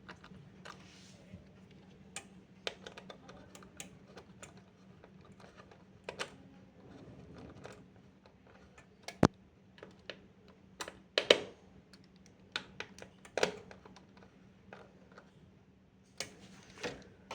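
Irregular small clicks and taps of an NVMe SSD being handled and fitted into a PC motherboard's M.2 slot, the sharpest click about nine seconds in. A faint low hum runs underneath.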